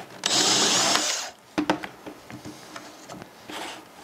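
Cordless drill/driver running for about a second as it backs a wood screw out of a router template screwed to the wood. A few light clicks and handling knocks follow.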